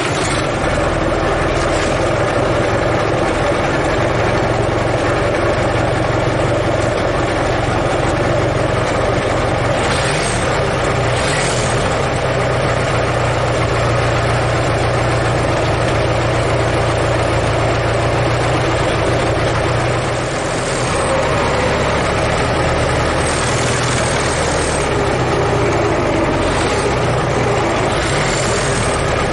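Ford Model T's four-cylinder engine running steadily. Its low note dips and shifts briefly about twenty seconds in.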